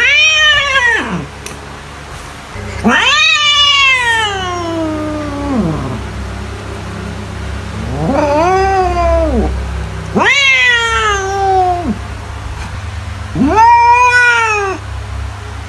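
A domestic cat meowing: five long, drawn-out calls, each rising and then falling in pitch, the second the longest. A steady low hum runs underneath.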